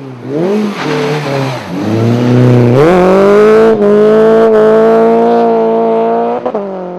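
Rally car engine revving hard on a stage. It gives several quick rises and falls in pitch over the first second and a half, then pulls loud and high for about four seconds with a jump in pitch near three seconds in. A brief lift about six and a half seconds in drops it to a lower, quieter note.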